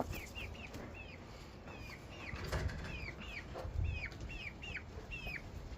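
A bird giving a steady run of short, high chirps that fall in pitch, about two a second, over low rumbles.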